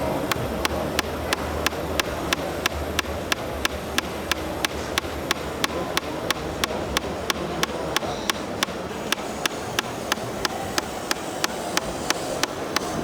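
A sharp, even click repeating about three times a second, like a mechanical tick, over steady background noise.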